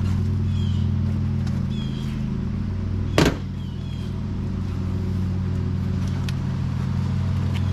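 A steady low mechanical hum, with one sharp knock about three seconds in, during hand work on a car's front bumper.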